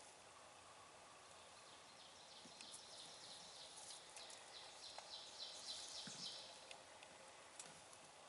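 Faint outdoor background in which a small bird sings a run of short, high repeated notes, about four a second, in the middle of the stretch.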